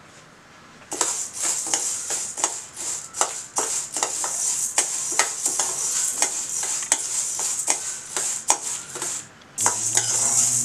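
Steel ladle stirring dry horse gram seeds around a stainless steel kadai as they dry-roast: the seeds rattle and hiss across the metal, with many quick scraping clicks of the ladle. It starts about a second in and pauses briefly near the end before going on.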